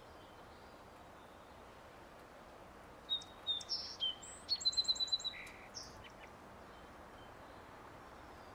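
A small songbird sings one short, varied phrase of high chirps and a quick trill, starting about three seconds in, over a steady background hiss.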